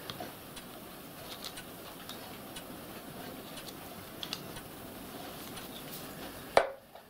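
Faint metallic clicks of a small spanner turning nuts on a gas burner's jet manifold, over a steady background hiss. Near the end there is one sharp knock, and the hiss cuts off with it.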